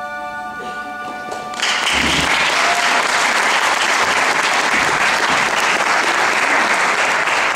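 The held last chord of a song fades out, and about one and a half seconds in, a theatre audience breaks into loud applause that continues.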